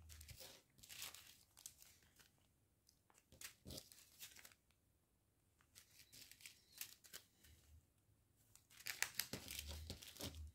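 Small plastic zip-lock sachets of round diamond-painting drills crinkling as they are handled, in faint intermittent rustles, loudest for a couple of seconds near the end.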